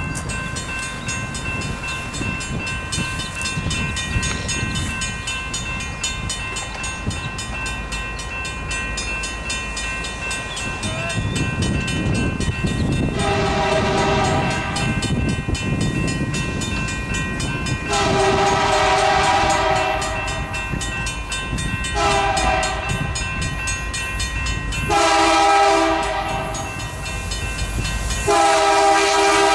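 Freight train approaching on diesel locomotives, the lead unit sounding its multi-note air horn in a series of blasts: two long ones a few seconds apart, then three more in quick succession, the last still sounding at the end. Under it the locomotives' low rumble grows louder, and a steady high ringing is heard through the first half.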